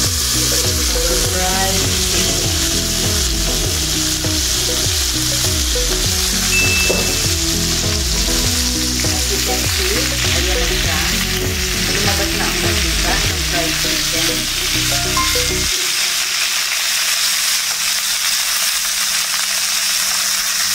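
Chicken pieces sizzling steadily in a hot electric stainless-steel skillet, frying in the fat rendered from their own skin with no oil added, as they are turned with metal tongs. Background music plays under the sizzle and stops suddenly about three quarters of the way through.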